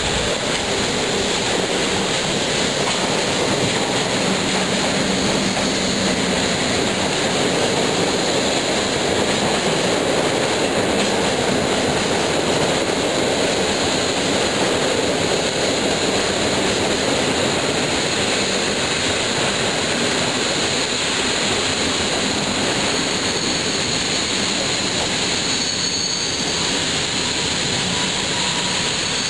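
Locomotive-hauled passenger train entering a station and rolling past along the platform at close range: a steady, loud noise of wheels and coaches running by, with a faint high squeal near the end.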